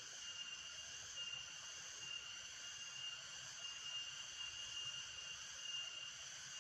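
Steady chorus of insects in the trees, several high shrill notes held together, one of which breaks off and starts again every second or so.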